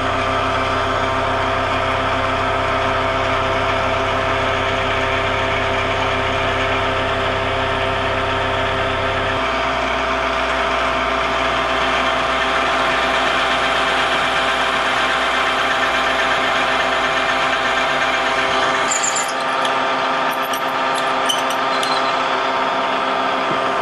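Vertical milling machine's spindle running steadily while a twist drill bores a tap-drill hole for a 5/8-11 thread through two clamped cast-iron bearing-block castings. The low hum shifts about nine seconds in and again a few seconds before the end, and a few sharp high clicks come near the end.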